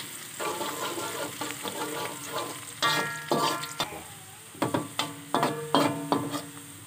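Oil sizzling as chopped aromatics fry golden in an aluminium wok, stirred with a slotted metal spatula. The spatula scrapes and knocks against the wok with several sharp, ringing strokes, mostly in the second half.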